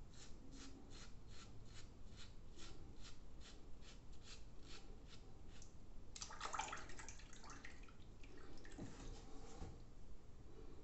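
Gillette Blue3 cartridge razor scraping through lathered stubble in short, quick strokes, about three a second. About six seconds in the strokes stop and a louder rush of water follows for a second or so as the razor is rinsed. Quieter handling sounds come after it.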